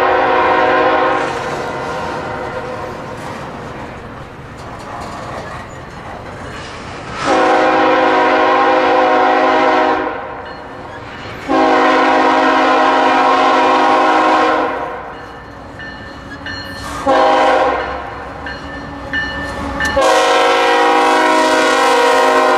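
Locomotive air horn of an approaching Canadian Pacific train sounding the grade-crossing signal: two long blasts, a short one, then a long one that is still sounding at the end, after an earlier blast cuts off about a second in. Beneath and between the blasts is the steady rumble and clatter of a double-stack intermodal train's wheels rolling past on the rails.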